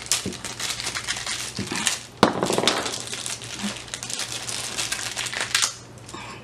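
Thin clear plastic bag crinkling and crackling as hands handle it, with a sharper snap about two seconds in. The crinkling stops shortly before the end.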